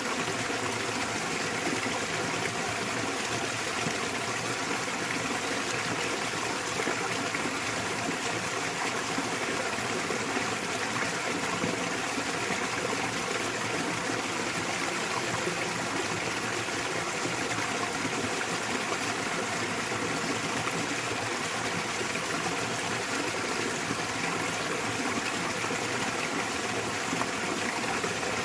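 Small waterfall in a mountain stream: water pouring and rushing steadily and evenly.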